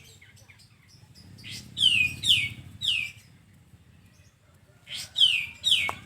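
Kapas tembak song: two phrases of about four loud notes, each falling steeply in pitch, the phrases roughly three seconds apart.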